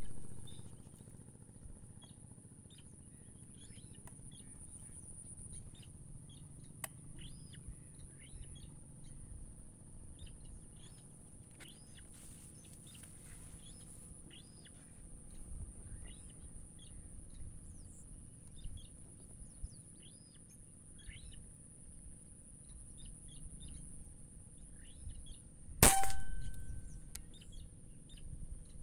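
Small birds chirping on and off over a steady high-pitched whine. About 26 seconds in comes a single loud shot from a scoped hunting rifle with a short metallic ring after it, the shot that hits the bird.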